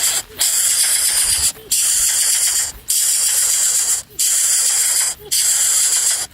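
A loud, high-pitched steady hiss or buzz that breaks off briefly about every second and a bit, five times.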